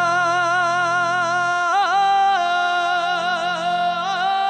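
Male Punjabi folk-Sufi singer holding a long sung note with vibrato, twisting it in quick ornaments about two seconds in and again near the end, over a steady low drone accompaniment.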